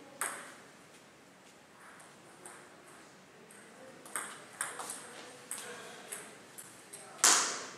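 Celluloid/plastic table tennis ball clicking off rackets and the table: one click at the start, then a short rally of about six quick hits. Near the end comes one much louder, sharper burst.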